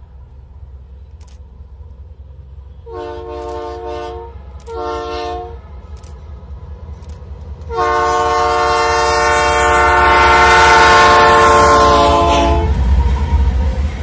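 Diesel locomotive air horn sounding a chord in two short blasts a few seconds in, then one long, loud blast, over the steady low rumble of a loaded iron-ore freight train. The rumble swells near the end as the loaded wagons roll past.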